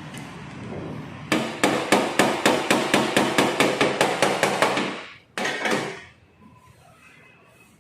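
Rapid hammering, about five sharp blows a second for some three seconds, then a short second burst of blows.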